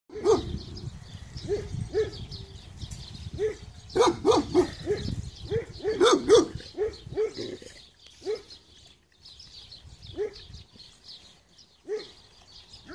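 Cane Corso dogs and puppies barking: a run of short barks, thickest about four to six seconds in, then only a few.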